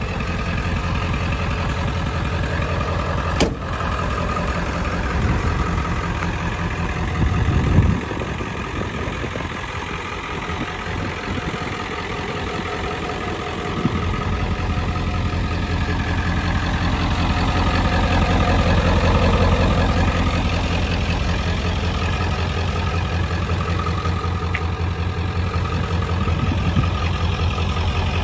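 1995 Ford F-350's 7.3 Power Stroke turbo-diesel V8 idling steadily with a low, even rumble. It grows louder about fourteen seconds in. A short knock comes about three seconds in, and a brief louder thump near eight seconds.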